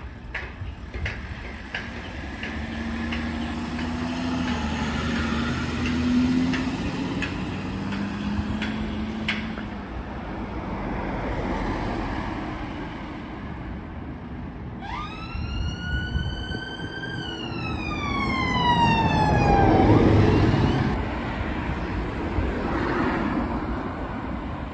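Emergency vehicle siren giving a single wail: it rises sharply about fifteen seconds in, holds briefly, then falls away over a few seconds. Vehicle engines run underneath and grow loudest as the wail dies.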